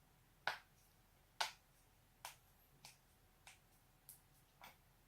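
A person's spinal joints cracking: seven sharp pops in quick succession, about two a second, the first two loudest and the rest fainter.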